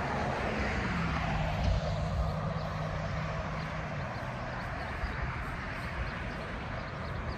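Road traffic passing on the highway beside the track, a swelling rush of tyre noise that fades over the first couple of seconds, with a faint steady engine hum and wind rumbling on the microphone.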